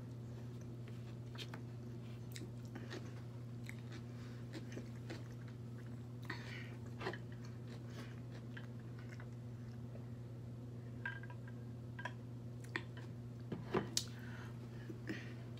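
Close-miked chewing and wet mouth clicks of a person eating crisp cucumber slices, with two sharper taps near the end, over a steady low hum.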